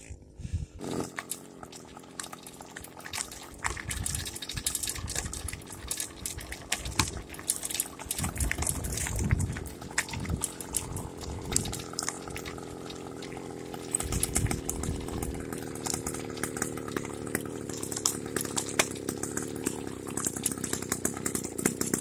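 Small motorized-bicycle engine running steadily with a buzzing, chainsaw-like note, with many sharp clicks and knocks throughout.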